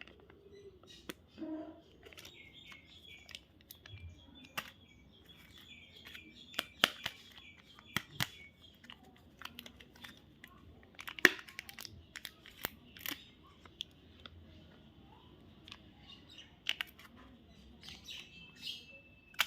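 Sharp crackles and clicks of candy wrappers being handled and torn, with a small bird chirping in quick runs of short calls.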